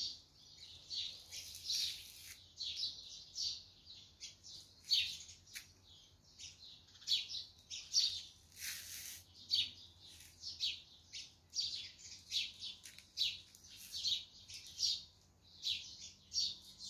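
Small birds chirping: a steady string of short, high chirps, several a second.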